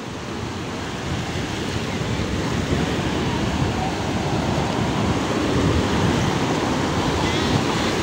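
Small sea waves breaking and washing over the sandy shallows in a steady, hissing wash that gradually grows louder.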